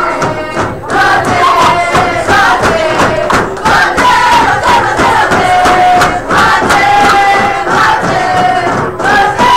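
A crowd chanting and cheering loudly, many voices together with held shouted notes.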